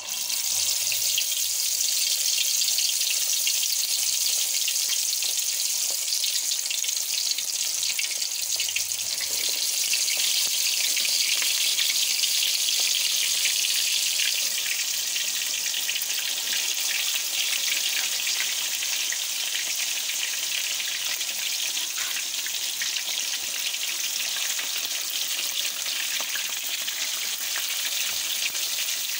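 Masala-marinated fish pieces deep-frying in hot oil in a karahi: a loud, steady sizzle with fine crackling that starts suddenly as the first piece goes in.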